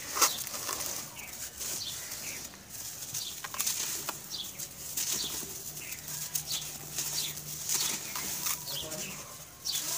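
Gritty grey lumps crumbled by hand into loose dry powder: a run of irregular crisp crunches and crackles, with the hiss of grit and powder pouring through the fingers.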